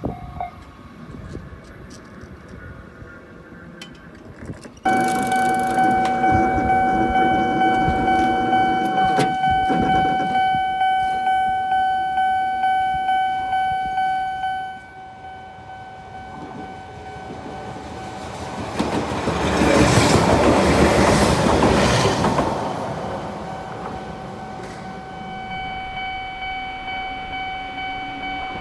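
Japanese level-crossing warning bell ringing in a fast, even rhythm from about five seconds in; it turns quieter partway through. An Eizan Electric Railway train then passes over the crossing, a rushing run of wheels on rail that swells and fades about twenty seconds in, while the bell keeps ringing.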